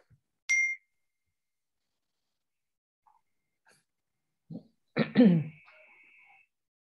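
A person coughing once, a loud burst of about half a second heard over a video call's compressed audio, with a faint high tone trailing after it. Earlier, about half a second in, a short high tone sounds.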